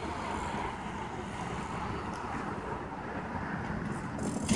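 Faint, steady outdoor background noise: a low rumble with a light hiss, as from wind on a phone microphone and road traffic.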